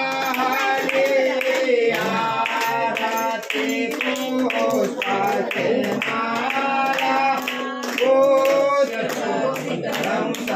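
A group of voices singing an aarti hymn together, with long held notes, and hands clapping steadily in time.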